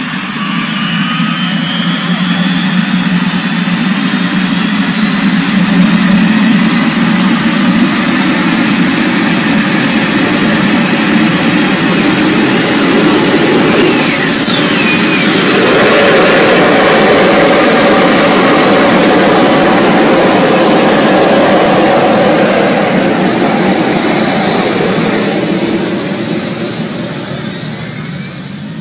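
The MTT Y2K Turbine Superbike's Rolls-Royce gas-turbine engine spooling up and running: a rushing roar with a high turbine whine that climbs in pitch over the first several seconds. About halfway through, a whistle sweeps quickly down in pitch, and the sound grows quieter near the end.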